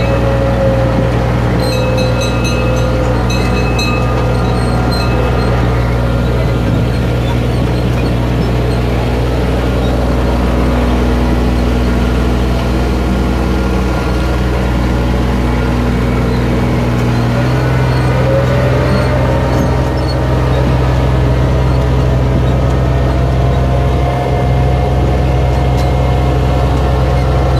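Engine of a small tractor pulling a farm ride train, running steadily under load. Its note steps up a little about two-thirds of the way through, with a faint rising whine at the same time.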